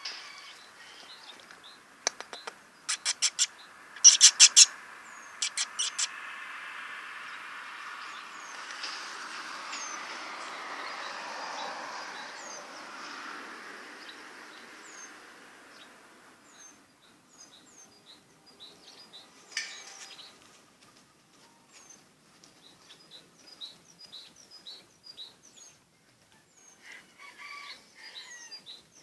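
Small birds chirping outdoors. Several bursts of loud, rapid, high chattering calls come a few seconds in, then scattered short, high chirps.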